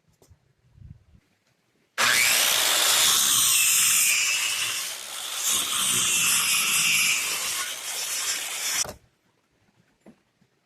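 Power saw cutting through wood for about seven seconds, its pitch shifting as the blade meets the load, easing briefly partway through, then cutting off.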